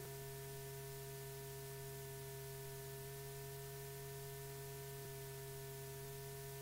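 Steady low electrical hum with a few faint higher steady tones over even hiss: the background noise of an old film soundtrack, with no other sound.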